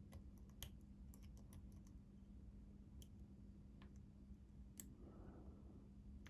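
Faint, irregular light clicks of a steel lock pick working the pins inside a Master Lock 6835 padlock under tension, as the pins are set one by one. A faint steady hum lies underneath.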